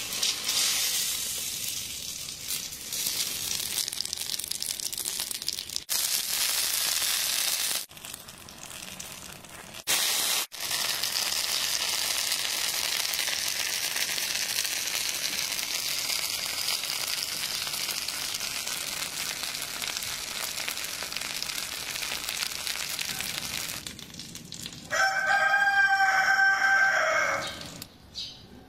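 Red pepper sizzling as it roasts on a hot stone slab over a wood fire, a steady hiss that breaks off briefly a few times. Near the end a rooster crows once, loudly, for about two seconds.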